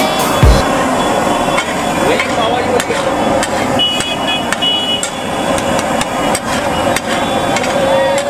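A metal spatula clanks and scrapes against a large flat griddle (tawa) as pav bhaji is mashed and stirred, with repeated sharp clanks at uneven intervals. Underneath is a steady sizzling hiss from the bhaji and the water poured onto the hot pan.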